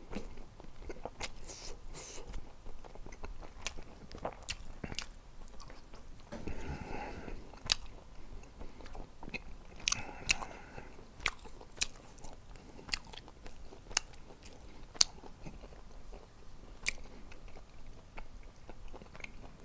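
A person chewing and eating gochujang-seasoned dried squid strips and rice, with sharp, irregular mouth clicks and smacks.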